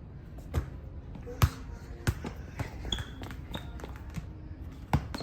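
A ball thumping on a hard floor about six times at uneven intervals, the loudest hit about one and a half seconds in.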